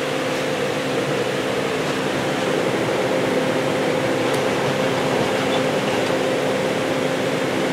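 A steady machine hum with a rushing air noise, like a cooling unit or fan running, and a few faint light clicks of an empty plastic soda bottle being pawed and bitten by a cat.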